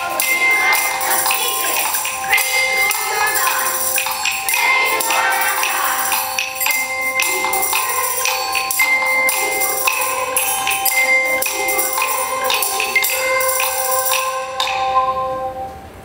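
Music of ringing bells: several steady held bell tones with quick jingling strokes over them, and voices wavering in places. It stops about a second before the end.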